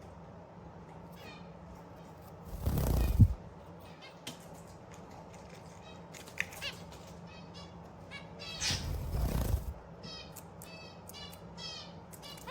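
Zebra finches calling with many short, nasal, repeated chirps. Two louder rushing noises, each about a second long, come about three seconds in and again about nine seconds in.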